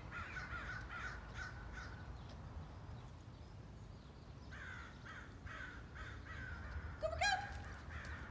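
Crows cawing in runs of short repeated calls, one run at the start and another about four and a half seconds in, with a louder rising cry near the end.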